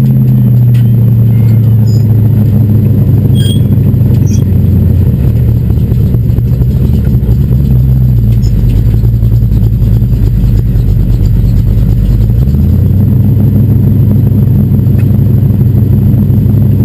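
Super Street race car's engine running at low speed, heard from inside the cockpit. Its note is steady and low, and its pitch shifts twice: about five seconds in and again about twelve seconds in.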